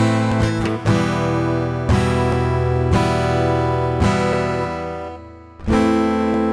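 Background music: acoustic guitar strumming chords, about one strum a second, fading briefly before one last strum near the end.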